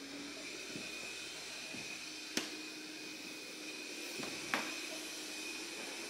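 iHome AutoVac Nova robot vacuum running, a steady whir with a thin high whine. A couple of sharp clicks come about two and a half and four and a half seconds in.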